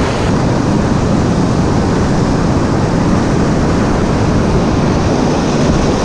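Loud rushing whitewater close to the microphone: a steady hiss over a low rumble.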